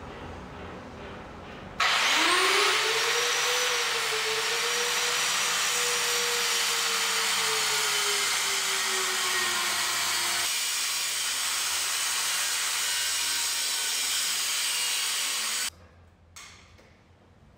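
Corded angle grinder spinning up about two seconds in and cutting through a metal pipe, a harsh grinding hiss over the motor's whine, which sags as the disc bites. It stops suddenly near the end.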